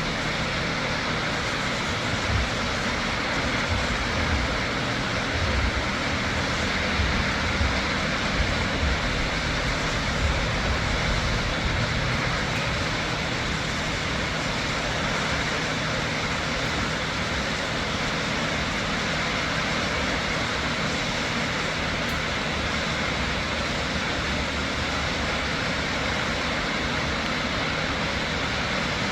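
Shoshone Falls on the Snake River, a large waterfall, with its water pouring in a steady, even rush, and uneven low rumbles during the first half or so.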